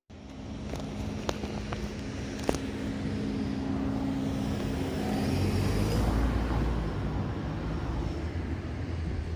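A vehicle passing outdoors: a steady low hum with a few sharp clicks stops about five and a half seconds in, while a low rumble swells.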